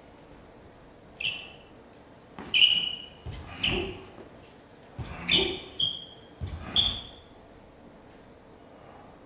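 Rubber-soled sneakers squeaking and feet stamping on a smooth studio floor during fast tai chi footwork: about six short, sharp squeaks between one and seven seconds in, three of them with dull thumps, in a reverberant hall.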